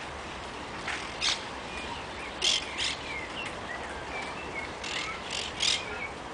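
Monk parakeets giving short, harsh screeches, about seven of them in loose groups, with softer chirps in between.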